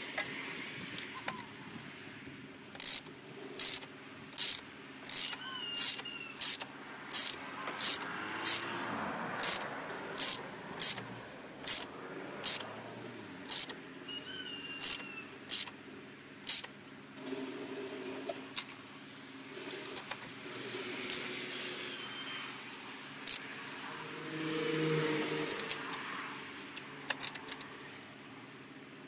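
Socket ratchet wrench clicking in short bursts, roughly one to two a second, as it turns a spark plug through a long extension; the clicking stops for a while partway through and returns briefly near the end.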